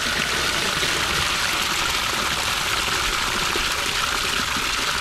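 Water carrying catfish fingerlings gushing out of a tipped plastic drum and splashing into a pond, a steady pour.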